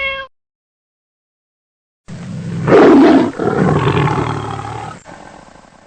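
A large wild animal roaring: one long, rough roar starting about two seconds in, loudest near its start and trailing off over the next few seconds. A short pitched animal call cuts off right at the start.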